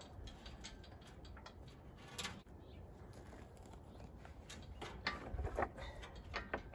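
Scattered light clicks and knocks of an engine hoist being shifted as its caster wheel is worked back onto a wooden board, with a louder knock about two seconds in and a cluster of clicks near the end.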